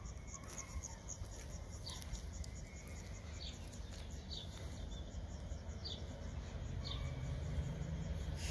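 Small birds giving short, high, falling calls about once a second over a fast, steady insect-like chirping. A low rumble builds toward the end, from a train in the distance.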